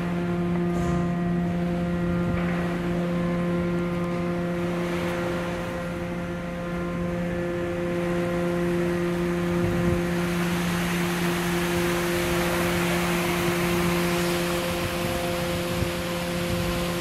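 Lock gate's drive machinery humming steadily as the gate swings open. From about halfway through, water rushes and splashes out under the rising gate, growing louder toward the end.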